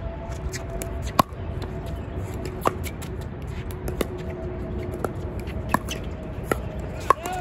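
Pickleball rally: paddles strike the plastic ball with about seven sharp pocks, roughly one a second, over a steady rumble of wind on the microphone.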